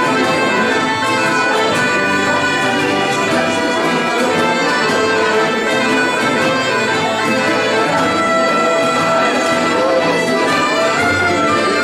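Live folk dance music played on a button accordion, its held reed notes sounding continuously over the dance tune.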